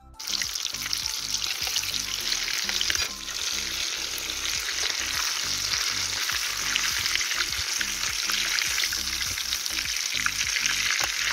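Breaded cheese sticks sizzling in hot oil as they deep-fry in a pan: a dense, loud hiss full of fine crackles. Quiet background music runs underneath.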